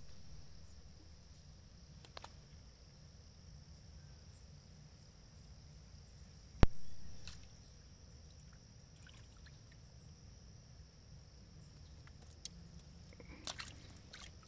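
Quiet waterside ambience: a steady high-pitched hiss over a low wind rumble. About six and a half seconds in comes a single sharp knock, the loudest sound, with a short fading tail, and a few light clicks come near the end.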